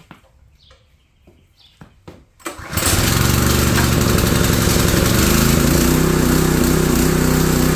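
Husqvarna 3200 PSI pressure washer's small gas engine being pull-started cold on choke: after a few faint clicks it catches about two and a half seconds in and runs on loud and steady, its note settling about five seconds in.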